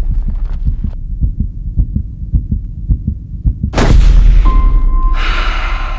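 Trailer sound design: deep thuds pulse about four times a second like a heartbeat over a low rumble. Nearly four seconds in comes a loud, sharp, gunshot-like boom, then a steady high ringing tone and a rush of noise.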